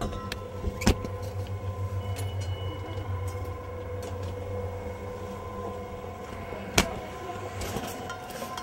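Camera being handled and covered, with rubbing noise and two sharp knocks, about a second in and near the end, over a steady low hum.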